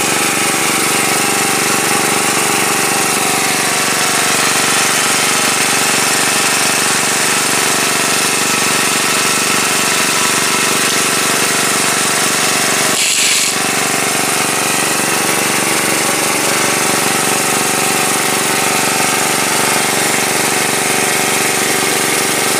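Small petrol-engine water pump running steadily under load, pulling ditch water through a suction hose and strainer. A brief burst of noise cuts across it about thirteen seconds in.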